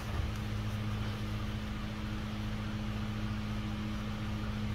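A steady low hum, even and unchanging throughout.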